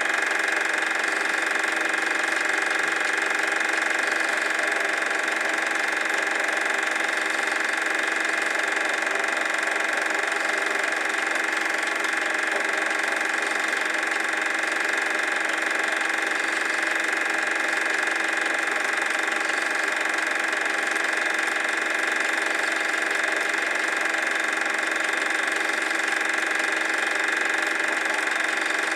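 Super 8 film projector running: a steady mechanical whir of the motor and film transport, unchanging throughout, with a prominent high hum.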